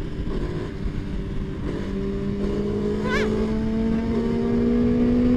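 Motorcycle engine running steadily at an easy cruising speed over a low rush of road and wind noise, its note creeping slowly higher and a little louder as the bike gathers speed. A brief high wavering tone sounds once about three seconds in.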